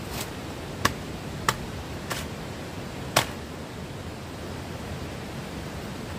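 Five sharp clicks or knocks, the first four roughly two-thirds of a second apart and the last, the loudest, about a second later, over a steady hiss of background noise.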